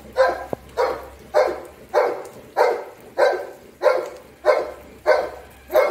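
A dog barking over and over at an even pace, about ten barks a little under two a second.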